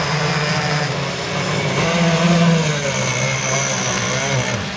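Several 26–35cc petrol two-stroke RC racing boats (Zenoah-type engines) running flat out together, a steady high-revving buzz whose pitch rises and falls as the boats pass. A thin high whine cuts off just before the end.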